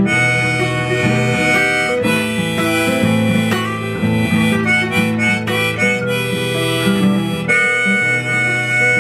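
Instrumental break in a song: harmonica playing a melody over acoustic guitar and bass, with no vocals.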